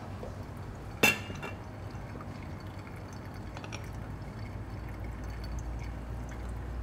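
Brewed coffee dripping from a pour-over cone dripper into a glass server, with one sharp, ringing clink about a second in.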